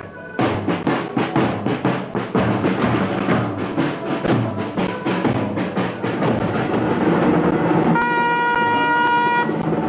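Festival drums beating a fast, steady rhythm. About eight seconds in, trumpets come in with a long held note over the drumming.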